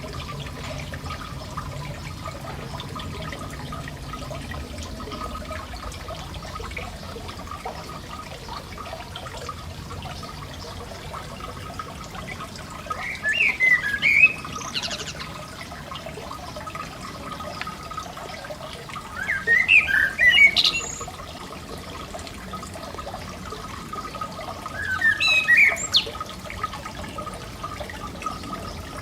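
A songbird sings three short phrases, about six seconds apart, over the steady splashing of a garden fountain.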